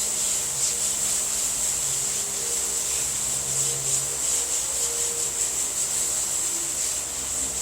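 Hand block sanding: sandpaper on a flat sanding block rubbed back and forth over a car body panel, a steady scratchy hiss that pulses with each stroke, cutting down a high spot.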